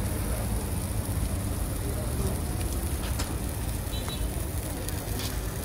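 Busy street ambience: a steady low rumble of traffic with faint voices in the background. A few light clicks come near the middle.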